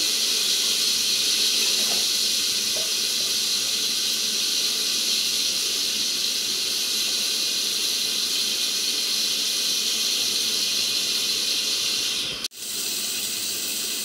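A steady, even hiss with no clear knocks or clicks. It cuts out abruptly for an instant about twelve and a half seconds in, then carries on slightly quieter.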